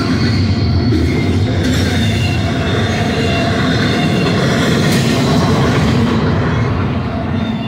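Double-stack intermodal well cars rolling past at speed: a steady rumble of steel wheels on the rails, with a faint thin high squeal from the wheels over it. The sound eases off near the end as the last cars go by.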